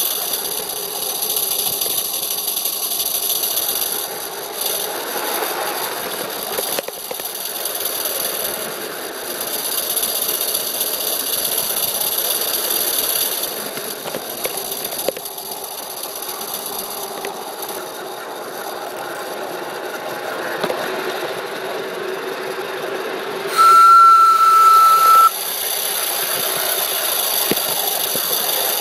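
Live-steam garden-railway locomotive running along the track, with a steady steam hiss and rattle throughout. Late on, one short, steady whistle blast sounds for under two seconds.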